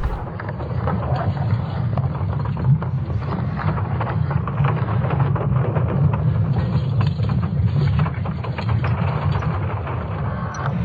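Sonification of Earth's magnetic field made from ESA Swarm satellite data: a steady low rumble with dense crackling and creaking over it.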